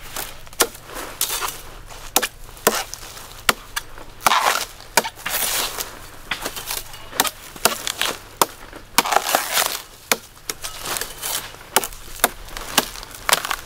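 Coconut being cut with a heavy knife: a series of sharp, irregular chops into the husk, with rasping cuts in between.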